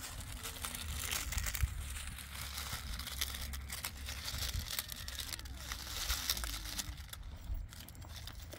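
Dry fallen leaves rustling and crackling as they are scooped up by hand from stony ground.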